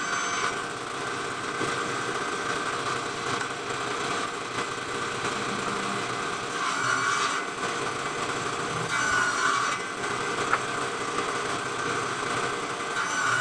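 Circular saw running and cutting through wood, a steady whine that grows louder twice as the blade bites harder.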